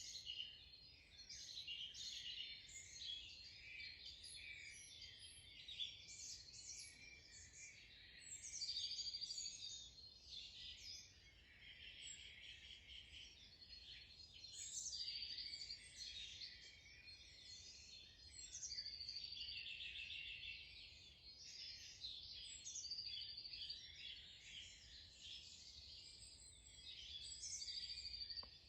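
Dawn chorus of many songbirds calling and singing at once. One bird repeats a short high trill every four to five seconds.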